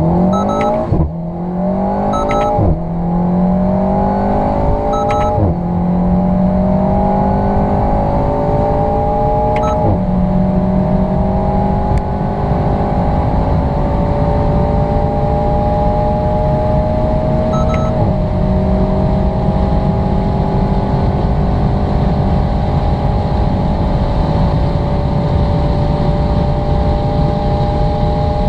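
Alpine A110's turbocharged 1.8-litre four-cylinder at full throttle, heard inside the cabin, pulling up through the gears of its dual-clutch gearbox: the engine note climbs, then drops back at five quick upshifts, each gear's climb longer and slower than the last as speed builds to about 246 km/h. A short beep sounds just before each shift.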